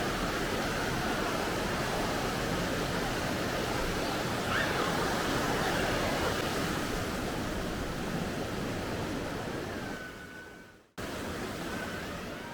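Steady rushing of river water, a continuous noisy wash that fades out about ten seconds in and cuts off, followed by quieter background sound.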